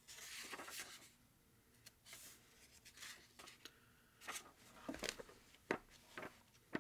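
Paper pages of a 1955 Reader's Digest Condensed Books hardcover being turned: a longer rustle of paper at the start, then a string of short page flicks and soft knocks as the book is handled.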